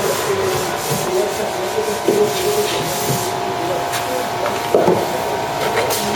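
Hand rubbing and scraping on wood, with a steady hum behind it and a couple of short knocks.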